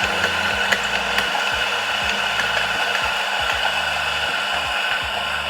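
Electric coffee machinery running steadily with a high motor whine while an espresso shot is being made.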